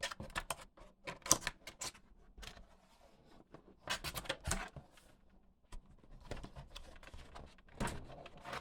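A cardboard box being opened by hand: irregular clicks, taps and scrapes of cardboard flaps and packaging being handled.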